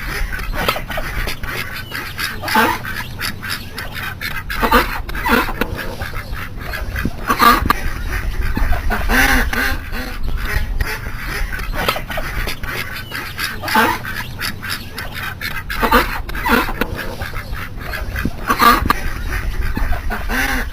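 Ducks quacking, calls repeating every second or two, over a steady low rumble.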